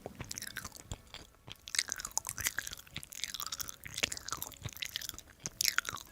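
Chewing close to the microphone: a steady run of wet mouth smacks and small clicks.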